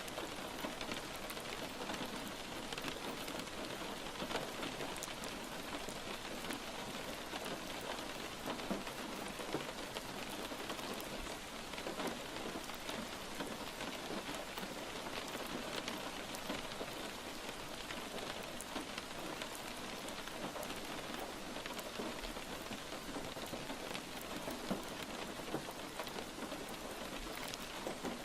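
Steady rain falling, a dense, even patter of many drops with no letup.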